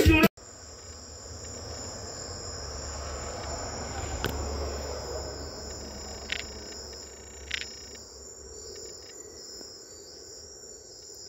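Night chorus of crickets: several insects trilling steadily at a high pitch over a low rumble, with two short clicks about halfway through.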